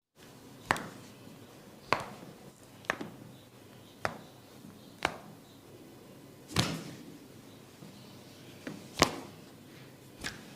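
A barber's hands during a head massage making a string of sharp cracks and slaps on the head and hair, about one a second, nine in all. One near the middle is fuller and rings a little longer.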